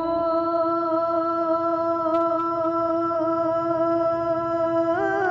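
A singer holding one long, steady sung note of an Urdu naat lamenting the departure of Ramadan, the pitch stepping up near the end into the next phrase.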